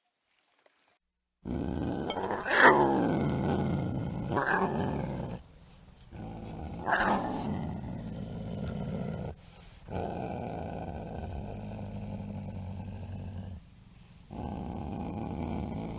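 A large animal growling, with three louder calls that fall in pitch between about one and six seconds after it starts. The sound breaks off and resumes a few times.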